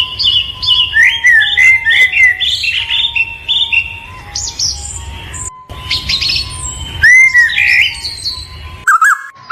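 Small birds chirping and calling in quick, overlapping short notes, with a brief break a little past halfway and a change in the calls near the end.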